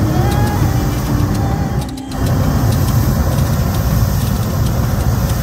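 Hot air balloon propane burner firing: a loud, steady roar that dips briefly about two seconds in and then carries on.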